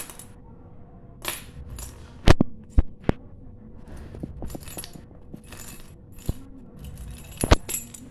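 Bunch of metal keys on a lanyard jingling and clinking in short bursts, with several sharp knocks as they hit the tile floor while a kitten bats and pounces at them.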